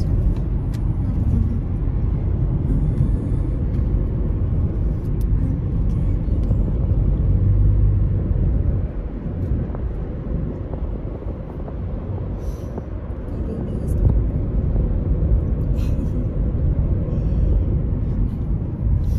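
Low, steady road and engine rumble inside a moving car's cabin, easing off for a few seconds near the middle before building again.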